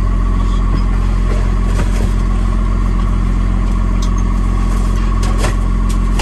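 A box truck's engine idling steadily while it warms up, heard from inside the cab. A few light clicks sound over it, about two seconds in and again near the end.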